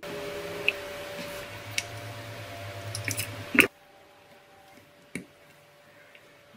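Handling of wire bullet connectors being pushed together: a few small, sharp clicks over a low steady hum, with the loudest click about three and a half seconds in, after which the hum drops away and one more click follows.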